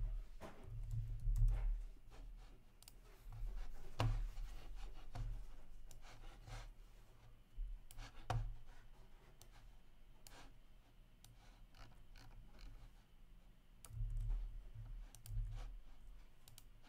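Scattered clicks of a computer keyboard and mouse in use, with a few soft low thumps.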